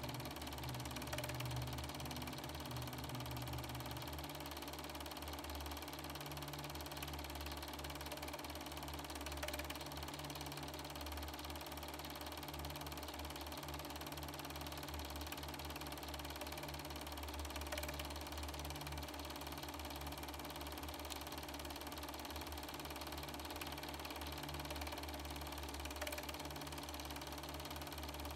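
Super-8 film projector running, its motor and film-advance mechanism making a steady mechanical whir and clatter. A faint tick repeats about every eight seconds.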